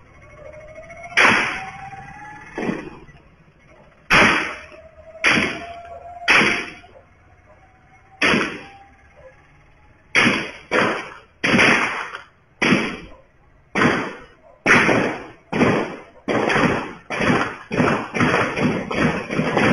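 A long series of sharp gunshots, each with a short echoing tail: a handful spaced a second or two apart, then from about halfway through a fast run of about two shots a second.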